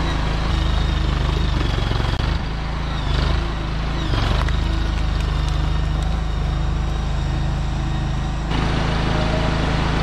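Engine of a stand-on tracked mini skid steer running steadily as the machine drives and works its log grapple. A couple of short high squeals come a few seconds in.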